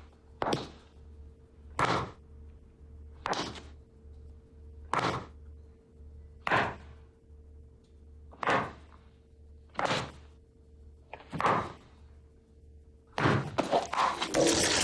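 Foley sound effects made by hand with props: eight heavy single thunks, evenly spaced about a second and a half apart, then a dense rush of noise near the end.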